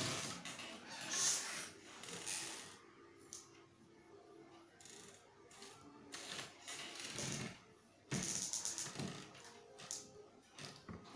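Faint scraping and small clicks from a metal drawing divider being adjusted against a plastic scale on paper, in short irregular bursts as its points are set to 2 cm.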